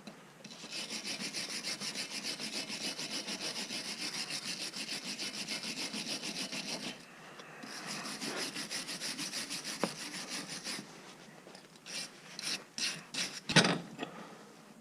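Rapid, even back-and-forth scrubbing on the rusty threads of an old pipe wrench, in two long runs with a short pause between them. A few sharp knocks follow near the end, the last one the loudest.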